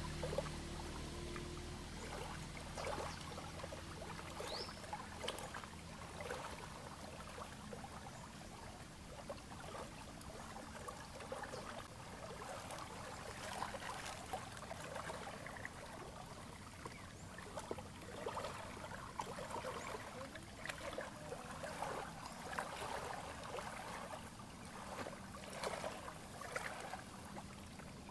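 Lake water lapping and trickling at the shoreline: an irregular, splashy patter of small clicks and trickles, with a brief high chirp a few seconds in.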